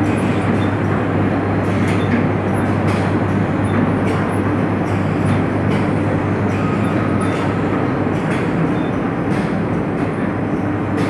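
Belt conveyors and packing-plant machinery carrying filled cement bags, running with a steady low hum under a dense mechanical rumble and faint scattered clicks.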